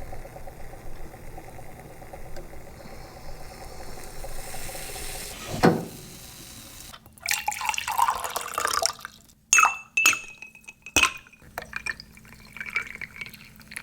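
Coffee from a moka pot poured and dripping into a glass, followed by several sharp clinks of glass, some with a short ringing tone.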